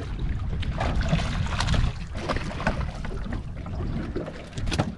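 Wind rumbling on the microphone aboard a small aluminium boat at sea, with water slapping against the hull and scattered short knocks.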